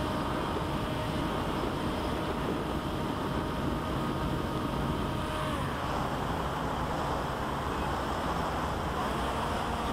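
Electric motor and propeller of an RC flying wing running in flight, heard from its onboard camera with wind rushing over the microphone. A steady whine gives way to a rougher, noisier sound about halfway through.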